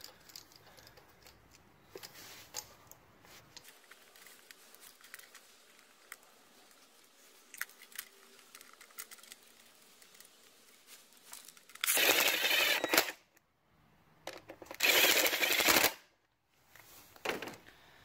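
Light clicks and taps of a plastic ignition coil being worked out of a spark-plug well and fitted to another cylinder on an engine that is switched off. Two loud scraping noises of about a second each come two-thirds of the way through and again near the end.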